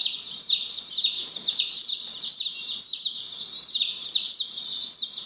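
A brood of day-old Light Brahma chicks peeping nonstop: many high, short, falling cheeps overlapping, several a second.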